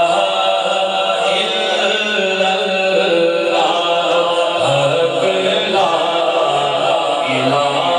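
Islamic devotional kalam sung in a chanting style by a male voice, with music behind it. Low bass notes come in about halfway through.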